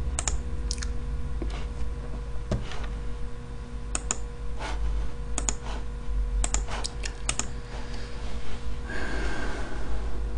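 Computer keyboard and mouse clicks, a dozen or so scattered at irregular spacing, over a steady low electrical hum, with a brief soft rushing sound near the end.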